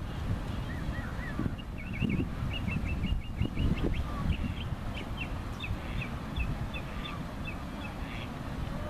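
Wind buffeting the microphone, with a bird giving a long run of quick high chirps and short trills through the middle.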